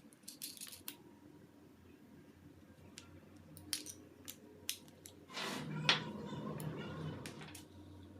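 Workshop handling of small metal tools and parts: scattered light clicks and clinks, then a rough scraping noise lasting about two seconds, starting a little past five seconds in.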